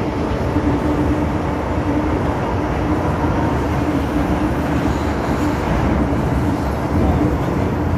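MTR M-Train electric multiple unit running at steady speed: a continuous rumble of wheels on rail with a steady low tone from the train.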